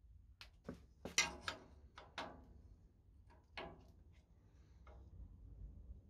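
Irregular sharp clicks and knocks of an aluminium measuring fence being handled and set against the metal table of a Morso mitre guillotine. There are about a dozen strikes, the loudest a little over a second in.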